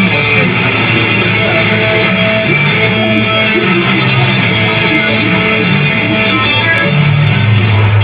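Guitar-led music playing steadily.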